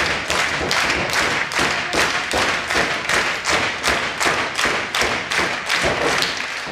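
Crowd clapping together in a steady rhythm, about four claps a second.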